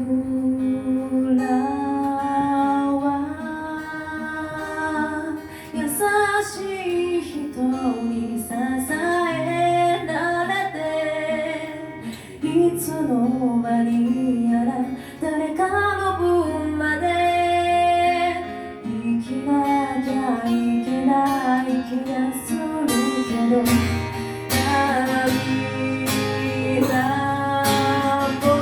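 Live song performance: singing voices over instrumental accompaniment, with a bass line and occasional percussive strokes.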